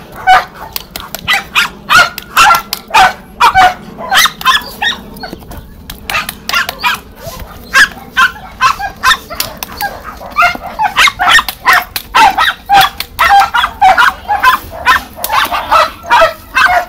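Small dog barking rapidly and without let-up, high yapping barks a few times a second with brief pauses.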